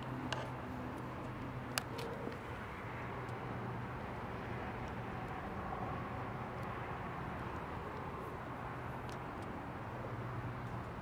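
Turbocharged Scion FR-S's flat-four boxer engine idling steadily, with a couple of sharp clicks in the first two seconds.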